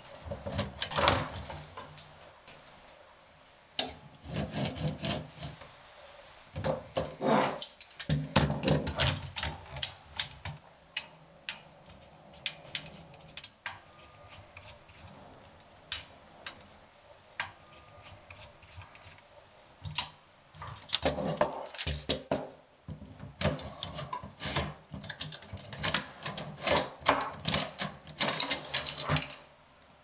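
Metallic clicks, clacks and rattles of a 1930s Remington-built Remie Scout portable typewriter being taken apart by hand: keys and typebars jostled, screws worked with a screwdriver, parts handled. They come in uneven clusters, busiest in the first and last thirds and sparser in the middle.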